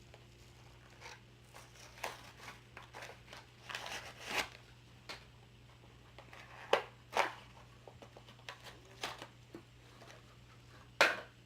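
A diecast toy car's cardboard-and-plastic blister package being torn and pried open by hand: irregular crinkles, rips and clicks, the loudest about seven seconds in and again near the end.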